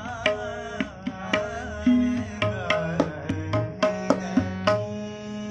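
Kumauni classical Holi song: a man sings over a harmonium's sustained reed notes, with tabla strokes keeping a steady rhythm. The voice drops out after about three seconds, leaving harmonium and tabla.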